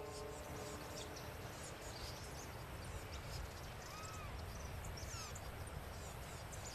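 Countryside ambience: a steady faint background of outdoor noise with a few short bird chirps, the clearest about four seconds in. The last notes of background music die away just at the start.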